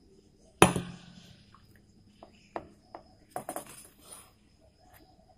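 Stainless steel tumbler and steel plate clinking and knocking together as bottle gourd juice is gathered from the plate into the tumbler. A sharp ringing clank about half a second in is the loudest, followed by a run of lighter clinks and knocks a couple of seconds later.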